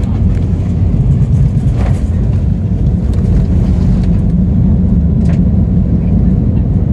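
Airbus A320 rolling along the runway after touchdown, heard from inside the cabin: a loud, steady low rumble of engines and wheels on the runway.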